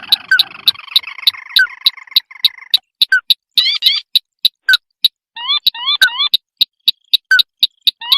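Looped bird-lure recording of crake calls: sharp, evenly spaced clicks about three a second, over a dense chorus of overlapping calls that stops about three seconds in. Short rising whistled notes come in quick groups a little later.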